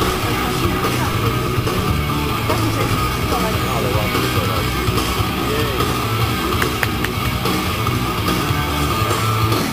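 Rock music with guitar, loud and steady throughout.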